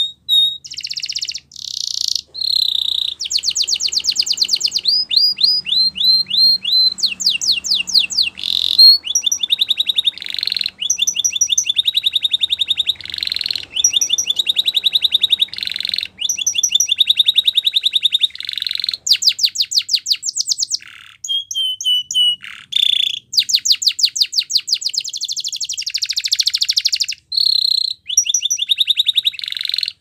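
Domestic canary singing a long, continuous song: phrase after phrase of fast trills and rolls of rapidly repeated high notes, some as quick upward sweeps, with only brief breaks between phrases. The song stops abruptly at the very end.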